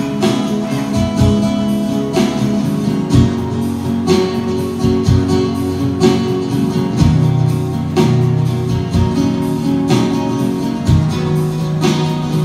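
Acoustic guitar played live in an instrumental passage, strummed in regular strokes about once a second over ringing chords.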